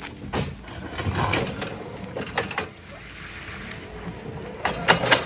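Irregular sharp cracks and knocks in quick clusters, the loudest near the end, over a faint steady engine hum: wood cracking and snapping as a forklift pulls at a tree.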